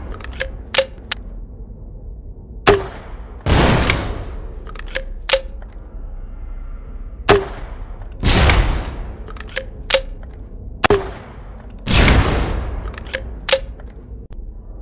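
MP5SD submachine gun with grenade launcher sound effect. Three times over, a sharp shot is followed about a second later by a longer blast lasting about a second, then two light mechanical clicks.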